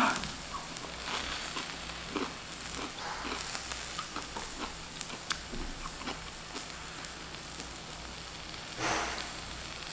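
Zucchini slices sizzling steadily on a hot tabletop grill pan, with small clicks of chewing. A short louder swell near the end as a sip of water is taken from a glass.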